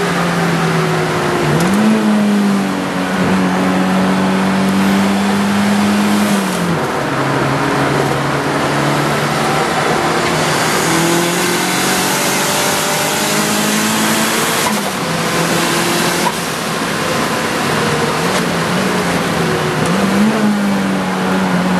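Turbocharged Toyota twin-cam engine driven hard on a race track, heard from inside the car's cabin. Its revs climb and drop several times as it is worked through the gears, over a steady rush of road and wind noise.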